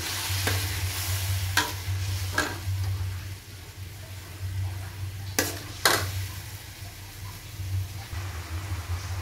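Metal spatula stirring and scraping chopped food frying in a little liquid in a steel wok. The food sizzles, louder in the first few seconds, and the spatula clanks sharply against the pan several times, twice in quick succession about halfway through.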